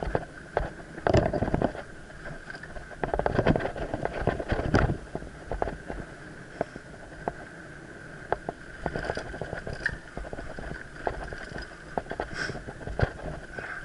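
Mountain bike rattling over a rough forest trail, its tyres rolling over roots and dirt, with frequent sharp knocks from the bike. Heavier jolting stretches come about a second in and again from about three to five seconds. A thin steady tone runs underneath.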